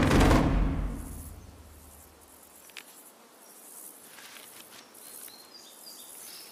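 Drum-heavy soundtrack music fading out over the first second or so, then a faint outdoor background with a steady high hiss of insects and a few short high chirps near the end.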